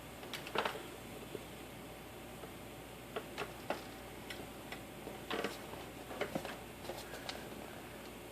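Irregular light clicks and taps of a computer keyboard being typed on, in short uneven clusters, over a steady faint hiss.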